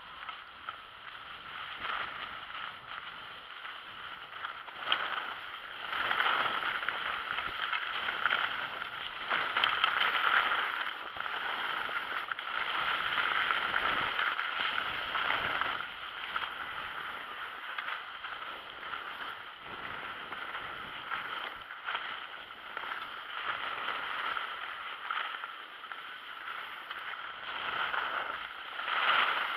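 Skis hissing and scraping over groomed snow on a fast downhill run, the sound swelling and easing in waves.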